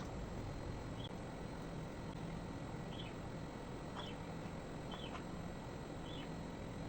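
A small bird chirping, short high chirps about once a second, over a steady background hiss.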